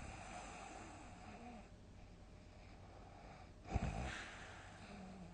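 A sleeping person snoring. The first snore trails off into breathy rushing that fades by about a second and a half in. A second snore follows about three and a half seconds in: a short low rattle, then more breathy rushing.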